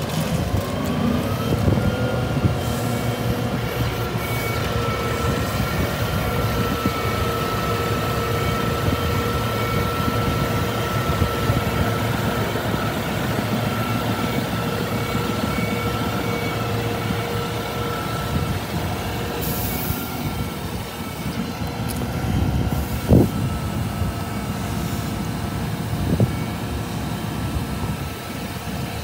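Scania P310 gas-engined skip loader truck running with its hydraulics working the skip-lifting arms. A steady whine rises in pitch over the first two seconds and then holds. Two sharp knocks come near the end.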